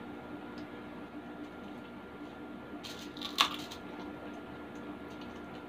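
Fingers picking at grilled tilapia on aluminium foil: small clicks and a short, sharp crackle a little past three seconds in, over a steady low hum.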